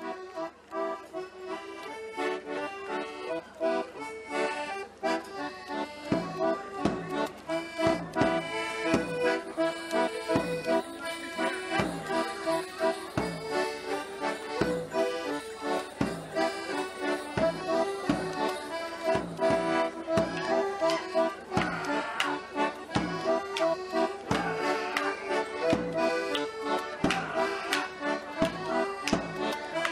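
Background music: an instrumental tune in a traditional style, with held melody notes, joined by a steady beat about six seconds in.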